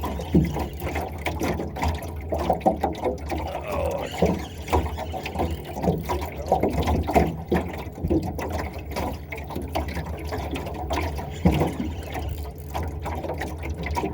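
Water sloshing and lapping in irregular splashes over a steady low hum.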